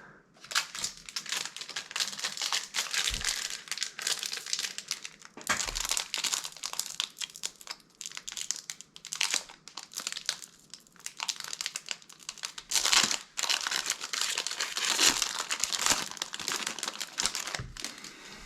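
Crinkly plastic card packaging being handled and rustled, with louder flurries of crinkling now and then.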